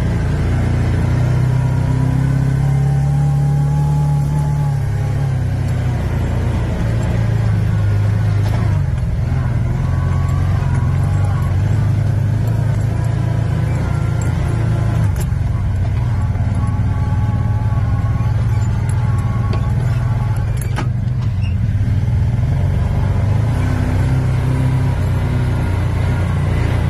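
Side-by-side UTV engine running under load on a trail, heard from inside the cab: a steady low drone that rises and falls in pitch with the throttle, with a fainter higher whine moving along with it. A couple of sharp knocks come around the middle.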